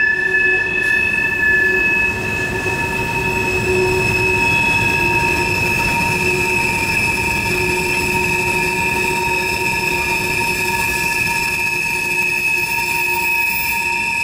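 Freight train wheels whining loudly through a tight curve: several steady, high-pitched squealing tones held over the rolling rumble of the railcars, the sign of wheel flanges and treads scrubbing against the rails.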